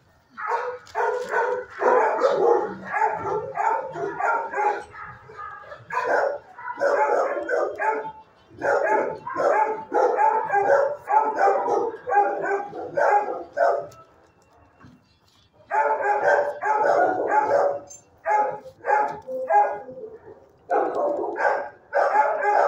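Dogs in shelter kennels barking in rapid, near-continuous volleys. They fall quiet for about two seconds a little past the middle, then start up again.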